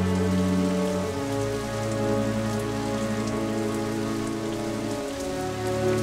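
Steady heavy rain falling on stone paving, with a slow background score of sustained low chords under it that shift about a second in and again near the end.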